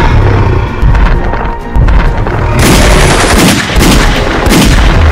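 Action-film soundtrack: music under deep booming thuds about once a second, then from about two and a half seconds in a loud, dense rattle of gunfire-like cracks and booms.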